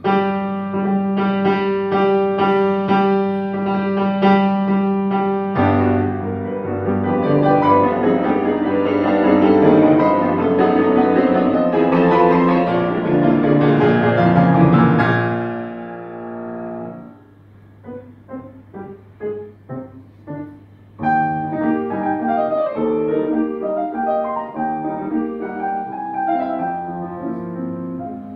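Steinway grand piano played solo. It opens on a repeated chord figure, builds into a loud, dense passage that dies away about 16 seconds in to a few quiet, separate notes, then swells again about 21 seconds in.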